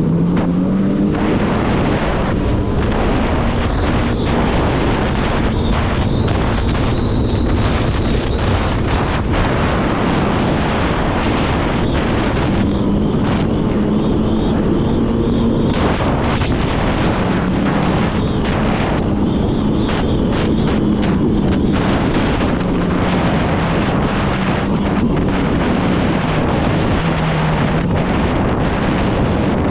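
Jet ski engine running under way, its pitch drifting up and down, with heavy wind noise on the microphone.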